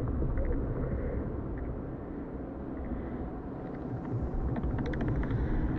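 Sound-designed intro: a low, steady rumble with scattered crackling clicks, the clicks growing more frequent in the last two seconds.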